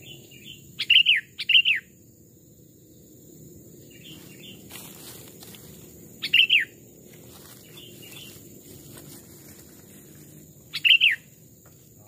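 Sooty-headed bulbul (kutilang) giving short, loud chirping calls: two close together about a second in, one near the middle and one near the end, with fainter answering calls between them.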